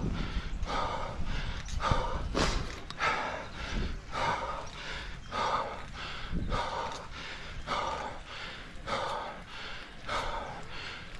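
A cyclist breathing hard and rhythmically under heavy exertion, about three breaths every two seconds, over a low steady rumble.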